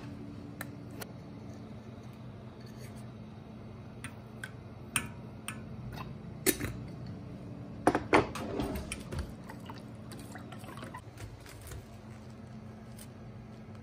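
Kitchen handling sounds at a stainless steel pot of water: scattered light clicks and taps, with a few sharp knocks a little past halfway, over a steady low hum.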